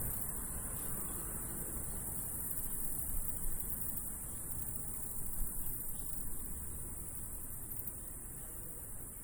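Colony of bats squeaking, a dense, continuous high-pitched chatter over a low rumbling haze.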